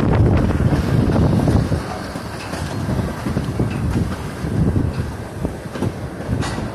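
Freight train's tank cars rolling past on the track, mixed with gusting wind buffeting the microphone.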